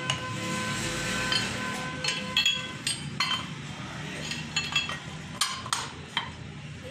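Steel parts clinking and knocking as a 200cc CNG rickshaw crankshaft is handled and set down into a heavy steel cylinder stand. There are a dozen or so irregular sharp clinks over a steady background hum.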